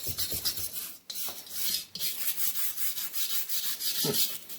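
Small plastic-bristle brush scrubbing a gasoline-wet Volkswagen engine part in repeated scratchy back-and-forth strokes.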